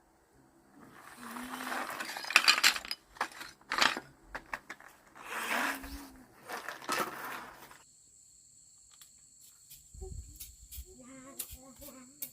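Loud rustling and clattering with sharp clicks, like materials being handled, for about seven seconds. It then stops and gives way to a steady high insect chirring with scattered clicks.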